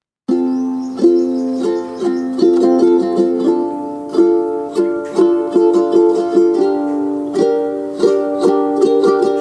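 Background music starts a moment in: a light instrumental track of plucked ukulele-like chords picked in a steady, even rhythm.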